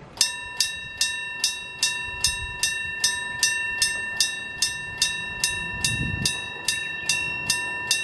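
Electric bell of a Japanese railway level-crossing alarm starting to ring about a quarter of a second in: a steady stream of metallic strikes, about two and a half a second, each ringing out. It signals that the crossing's warning has activated for an approaching train.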